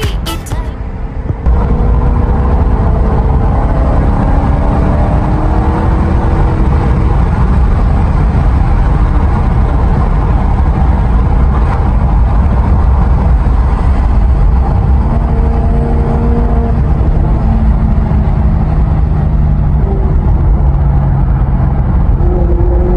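Maserati engine and tyre noise heard from inside the cabin while cruising, a loud steady low drone whose engine note drifts up and down gently and rises near the end.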